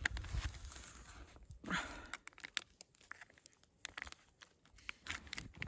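A plastic military ration (MRE) pouch being torn open and crinkled by hand, heard as a run of short crackles and rustles. The loudest rustle comes about two seconds in.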